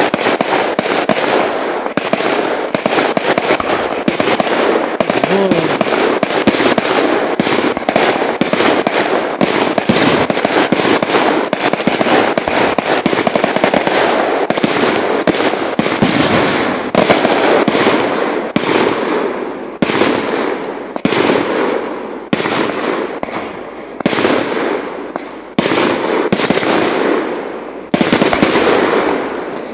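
Fireworks display: a dense, continuous run of bangs and crackling for the first half, then separate shell bursts about one to two seconds apart, each one dying away after the bang.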